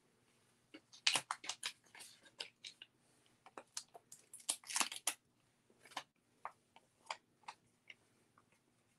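Crinkling and rustling of vellum paper being handled and pressed down onto a card: scattered short crackles, busiest about a second in and again around five seconds in, then a few lighter ticks.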